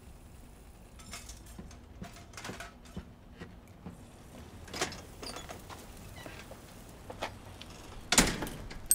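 Soft footsteps and small knocks of someone walking through a house, then a louder door sound about eight seconds in with a sharp click right at the end: the front storm door swinging shut and latching.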